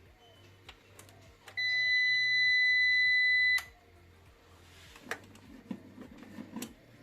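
A single steady, high-pitched beep lasting about two seconds, from the desktop PC's motherboard buzzer as the PC is switched on. It cuts off abruptly, and a few faint clicks come before and after it.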